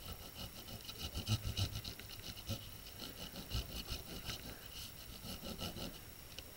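Peeled crayon held sideways and rubbed back and forth over paper laid on a texture plate: a scratchy rasping in quick repeated strokes as the plate's pattern comes through.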